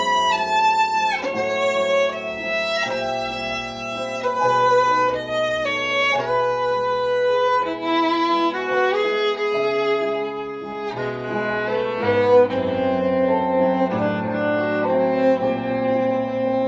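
Violin playing a melody in long, held bowed notes, with a recorded backing accompaniment carrying sustained bass notes underneath.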